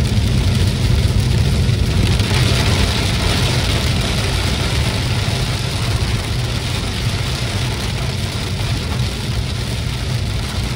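A car driving in heavy rain: a steady low rumble of engine and road with a hiss of rain and tyre spray over it. The hiss swells about two seconds in and eases off again a few seconds later.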